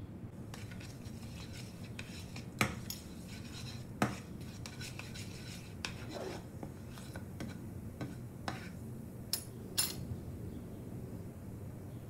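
Spatula knocking and scraping against a ceramic-coated pan while stirring seeds in oil: a scatter of sharp clicks, two louder knocks early on and a quick pair near the end.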